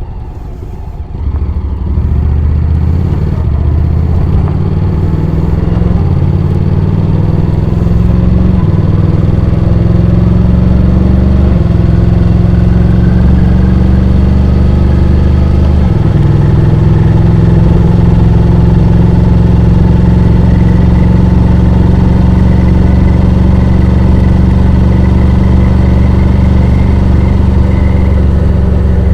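Honda X-ADV 750's parallel-twin engine heard from onboard, pulling away and accelerating, its pitch climbing in steps as it shifts up through the gears, then running steadily at cruising speed.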